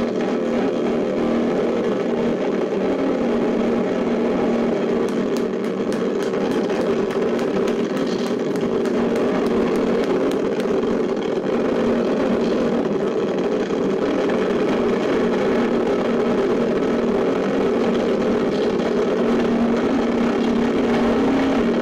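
A live band playing loud, heavily distorted electric guitars and bass in a steady, droning wall of noise, with scattered sharp cymbal strokes in the middle.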